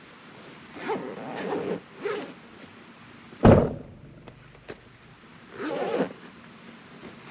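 A single loud thunk about three and a half seconds in, with shorter scuffing or handling noises before and after it.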